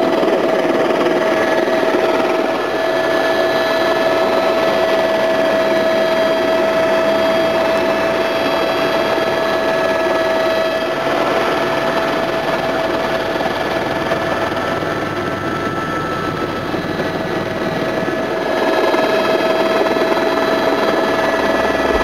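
Helicopter in flight heard from inside the cabin: steady engine and rotor noise with a constant high whine.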